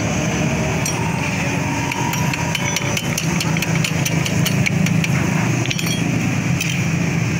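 A steady low engine hum, with a quick run of light metallic clicks and taps from a steel tool worked against a motorcycle's kick-start lever, from about two seconds in to about six seconds in.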